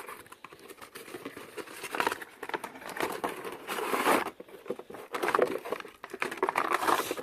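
Hands handling a light wiring harness kit and its packaging: irregular rustling with many small clicks and knocks as the parts are taken out and shown.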